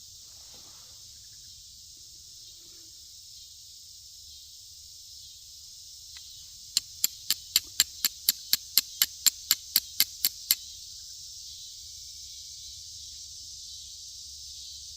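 Steady high-pitched insect chorus, with a run of about sixteen sharp clicks, evenly spaced at about four a second, for a few seconds in the middle.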